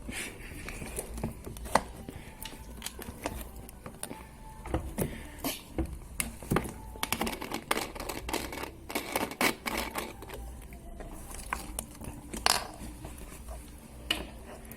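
Close, irregular clicks, pops and crackles of something being squeezed and worked by hand, with no steady rhythm.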